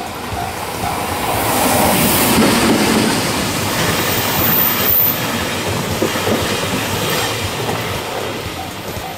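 JR Freight EF210 electric locomotive and its container wagons passing close by, the rumble loudest as the locomotive goes past a couple of seconds in, then a steady rattle and clatter of wagon wheels on the rails. A level crossing bell rings steadily, about three strokes a second, heard plainly at the start and again near the end.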